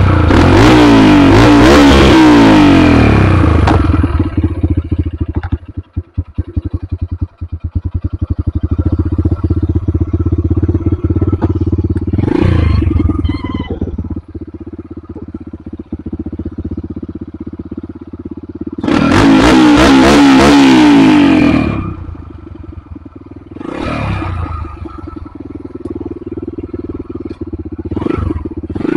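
Dirt bike engine just started and revved hard several times, with a long rev about two-thirds through, dropping back between revs to a rough, choppy idle that nearly dies a few seconds in. The rider says it keeps stalling on climbs and blames weak spark.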